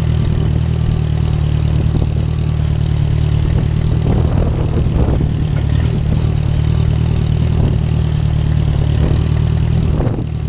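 Small farm tractor's engine running steadily as the tractor is driven, with a few rattles of the machine about four to six seconds in.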